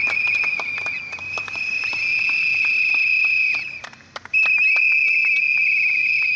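A plastic whistle blown in long high-pitched blasts, with a short break about four seconds in, over a group clapping their hands rapidly.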